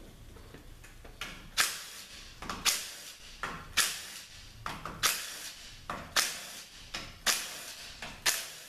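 Cordless drill-driver backing out the bolts that hold the main valve body of a Ford 4R100 automatic transmission, in short bursts. Seven bursts come about one a second, starting about a second and a half in; each starts sharply and fades quickly.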